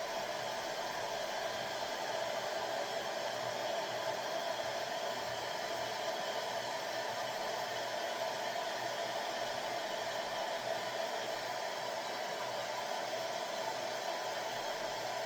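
Hair dryer blowing steadily, drying the bonding glue on a freshly placed weave track.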